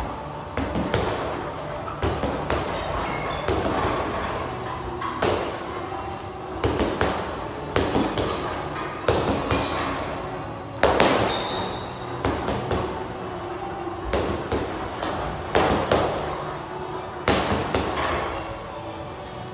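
Boxing gloves punching a hanging heavy bag: a string of hard thuds, landing singly and in quick combinations of two or three, a second or so apart.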